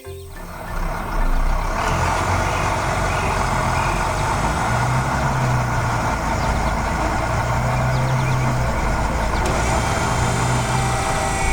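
Truck engine running steadily, building up over the first second or two, with a low hum that comes and goes.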